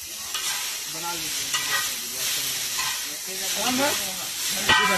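Chowmein noodles and vegetables sizzling on a large flat griddle as they are lifted, tossed and stirred with a metal utensil, which scrapes on the hot surface. A sharp metal clank with a short ring near the end.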